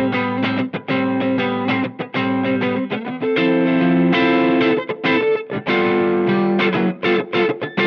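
Electric guitar played through a Cornerstone Antique Classic Drive V2, a Tube Screamer-style overdrive pedal, with overdriven chords in a choppy rhythm of short, clipped stabs. One chord is held for about a second and a half, a little over three seconds in.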